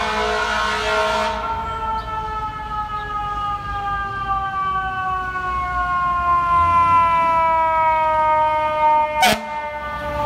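FDNY fire truck siren sounding, its pitch falling slowly and steadily throughout, over the low rumble of traffic. There is a single sharp knock near the end.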